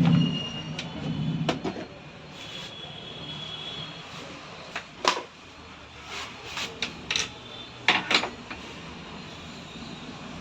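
Repair work on a top-load washing machine being taken apart: a low rumble of parts being moved in the first couple of seconds, then scattered sharp knocks and clinks of tools and parts.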